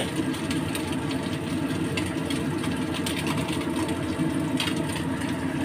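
Steady hum of a kitchen range hood fan, with scattered small crackles of fish frying in oil in a pan.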